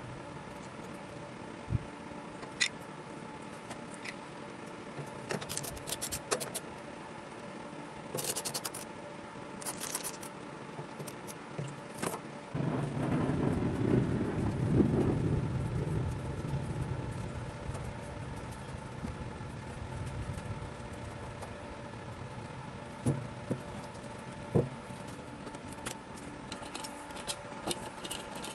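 Sharp clicks and scrapes of a screwdriver and fingers working the metal terminal block and cover of a Kisaiden TG-150 stick welder. About twelve seconds in, a louder low rumble sets in suddenly and fades away over several seconds.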